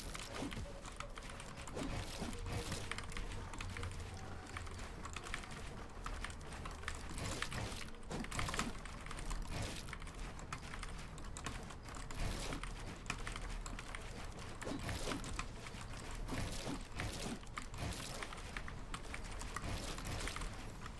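Mechanical keyboard with Gateron Brown switches (Asceny One 60%) clacking under fast, irregular key presses, a rapid uneven stream of clicks over a low steady hum.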